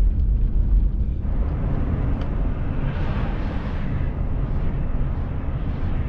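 Steady rumble of a truck's engine and tyres heard from inside the cab while driving on a snowy highway. A hiss of road and wind noise comes up about a second in.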